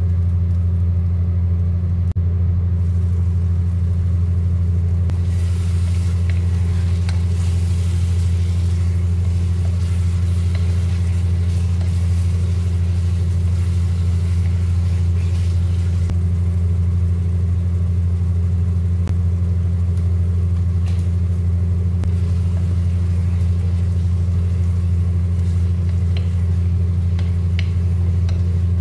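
A steady low hum that does not change, with faint sizzling from a pot of chicken in sauce simmering on medium heat. A few light knocks of a wooden spatula stirring in the pot near the end.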